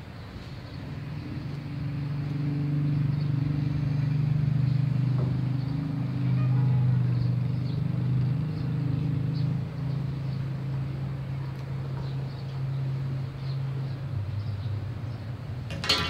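An engine running steadily with a low hum, growing louder over the first two seconds and then holding. A sharp click near the end.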